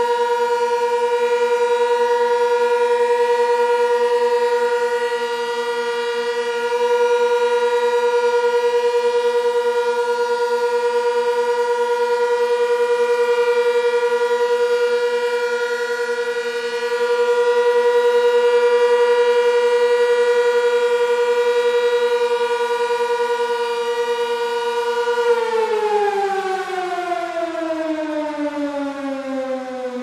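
Sentry 16V1T-B outdoor warning siren sounding the Alert signal, one steady tone. About 25 seconds in the pitch starts falling steadily as the siren shuts off and winds down.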